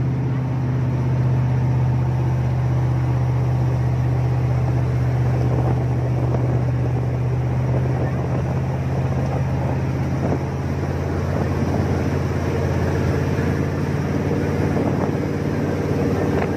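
Jet boat engine running steadily with a constant low drone and a hiss over it.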